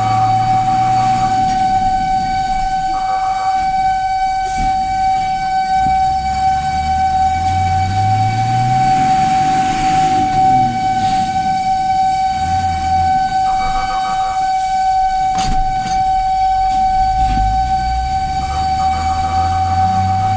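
Fire truck's siren holding one steady, unbroken tone, heard from inside the cab while the truck drives. Short pulsing bursts of a higher warning tone break in several times, and the truck's engine revs up underneath as it gathers speed.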